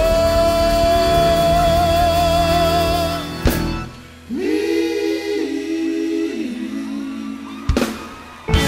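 Gospel quartet with band: a lead voice holds one long note with vibrato over the accompaniment. About three and a half seconds in the music briefly drops away, then the group comes back in on a held vocal harmony.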